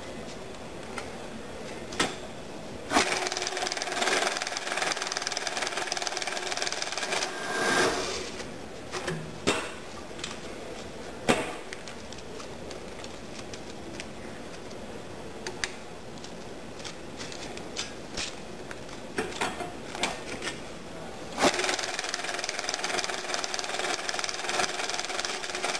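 Cummins JetScan 4068 currency counter running a stack of mixed-denomination banknotes through its feed twice, each run a steady, rapid, whirring rattle of bills lasting about five seconds that stops when the hopper empties. Between the two runs come scattered single clicks and paper rustles.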